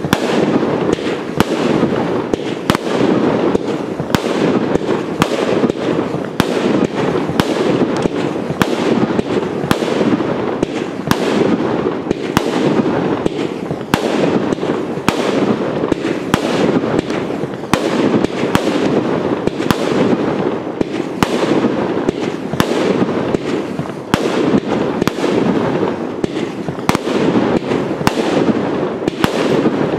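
Aerial fireworks bursting in a rapid, fairly even volley of about two bangs a second, over a continuous dense rumble of overlapping explosions.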